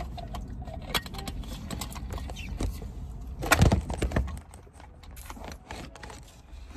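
Rustling, clicking and clinking of food packaging and a drink cup being handled, with a louder bump about three and a half seconds in.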